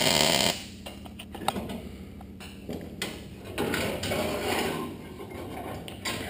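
MIG welder arc crackling as a boxing plate is tack-welded into a steel frame rail, cutting off about half a second in. Then light metal clicks and knocks as a steel C-clamp is loosened and handled.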